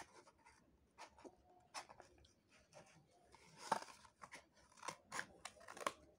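Small scissors cutting through a cardboard toilet-paper tube: a series of faint, irregular snips and crunches of the cardboard, loudest a little before four seconds in.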